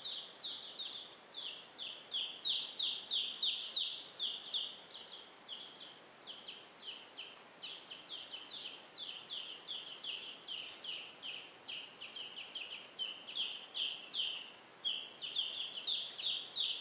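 Baby chicks peeping: a steady stream of short, high, downward-sliding peeps, about four a second, with a couple of brief pauses.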